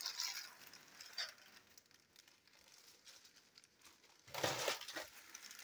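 Faint crinkling and rustling of a plastic bubble mailer being handled, with a louder rustle about four and a half seconds in.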